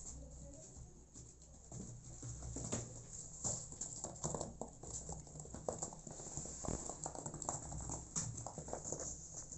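An adult cat and kittens shifting about in a cardboard box close to the microphone. A run of irregular soft clicks and scuffs from licking and from paws on the cardboard, over a low rumble that comes and goes.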